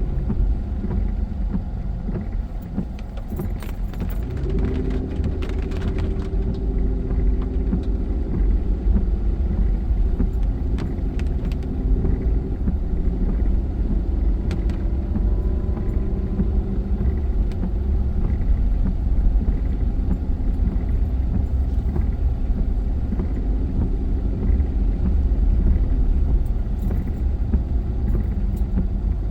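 Car on the road: a steady low rumble of engine and tyres, with the engine note shifting a few seconds in. Scattered light rattles and clicks sound over it.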